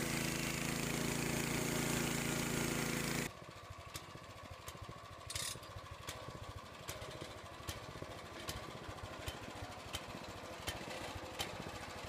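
Portable bandsaw sawmill with a small gasoline engine sawing through a squared timber, a loud steady drone of engine and blade. A little over three seconds in it drops suddenly to the engine running quieter, with light regular clicks about two to three a second.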